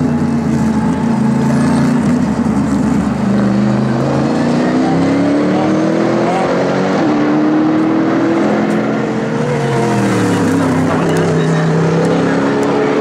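Mercedes SLS AMG GT3 race car's 6.2-litre V8 at racing speed, its note rising and falling several times as it accelerates and changes gear.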